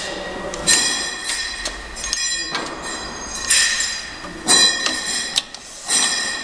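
Semi-automatic round-bottle labeling machine running its label-feed rollers in repeated short cycles. Each cycle gives a high-pitched whine lasting about a second, with clicks of the mechanism between the cycles.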